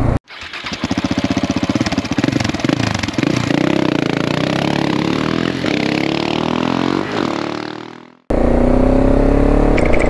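A motorcycle engine running with a rapid even firing beat, then revved several times with rising and falling pitch, fading out about eight seconds in. Near the end a motorcycle engine at steady cruising speed takes over, with road and wind noise.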